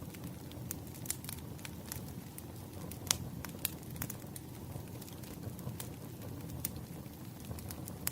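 Campfire crackling: irregular sharp pops and snaps over a low, steady rush of burning, with the loudest pop about three seconds in.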